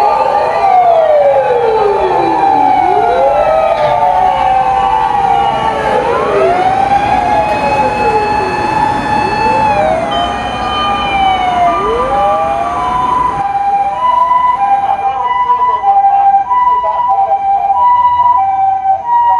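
Several Japanese emergency-vehicle sirens sounding together, their wailing tones sweeping up and down in pitch and overlapping. From about twelve seconds in, a fast two-tone high-low siren stands out.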